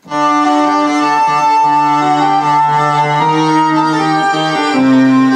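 Korg Delta DL-50 analog string synthesizer playing sustained chords, the held notes changing about every one and a half seconds. The instrument is working again after its failed capacitors were replaced.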